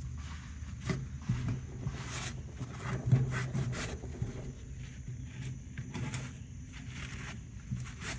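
Irregular rubbing and scraping as dirt is cleaned off around the fuel pump assembly and the tank opening, so it won't fall into the fuel.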